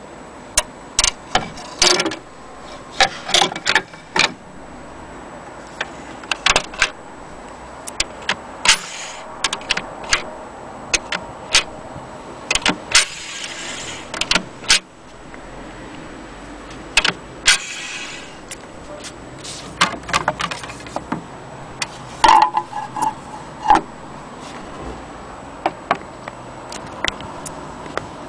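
Irregular metallic clicks and knocks from the parts of a Columbia Grafonola table-top gramophone being handled, including its speed regulator lever. There are two brief rubbing sounds about halfway through.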